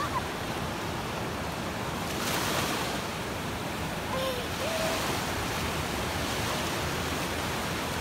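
Sea surf washing onto a sandy beach: a steady rushing hiss of small waves, swelling louder once about two seconds in as a wave runs up the shore.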